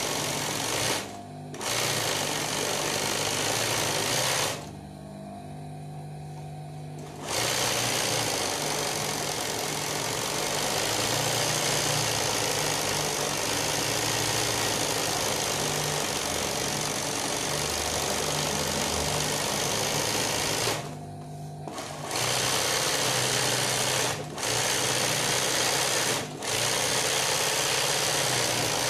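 Industrial zig-zag sewing machine running fast as it stitches freehand embroidery. It stops briefly several times, the longest pause lasting about two and a half seconds, and a low hum remains during the pauses.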